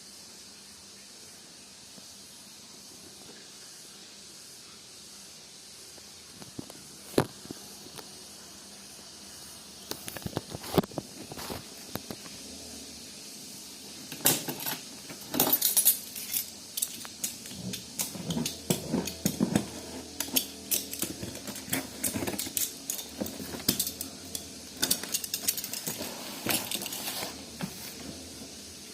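Steady hiss with scattered sharp clicks and clinks, sparse at first and coming thick and fast after about half way, like small hard objects being handled and knocked together.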